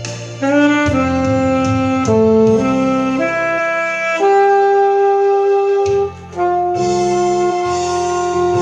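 Saxophone playing a slow melody over a lower accompaniment: a run of shorter notes stepping down and up, then a long held note, a brief break about six seconds in, and another long held note.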